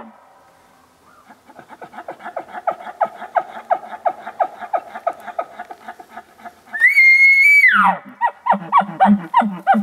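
Young bull elk bugling: a run of quick pulsed calls, then a high whistle held for under a second about seven seconds in, which falls off into a series of grunting chuckles.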